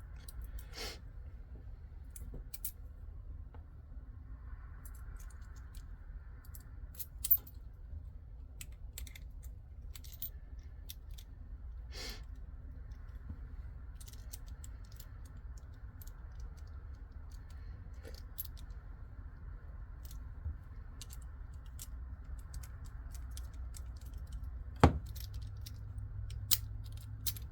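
Scattered small metallic clicks and taps of a five-pin pin-tumbler lock's parts being handled and fitted back together, with a few sharper knocks, the loudest near the end. A low steady hum runs underneath.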